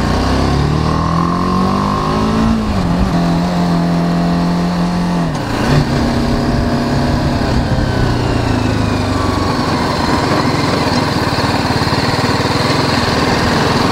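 BMW G 310 GS single-cylinder motorcycle engine running under way, with wind rush over the microphone. The engine pitch climbs over the first couple of seconds, drops sharply about three seconds in, holds, drops again near six seconds, then sinks slowly as the bike slows.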